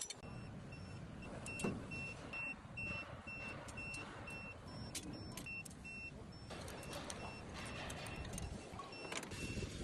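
Faint sharp clicks of tools on metal fittings over a low steady hum, with a faint high beep repeating several times a second.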